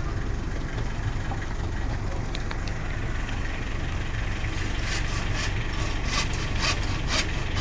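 Handsaw cutting a wooden slat on a sawhorse, the strokes starting about five seconds in at roughly two a second. A steady low hum runs underneath.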